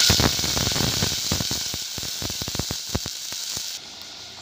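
Rice water poured into a hot clay pot of frying tempering, hissing and sizzling loudly at once with a run of crackles. The sizzle eases and stops suddenly near the end.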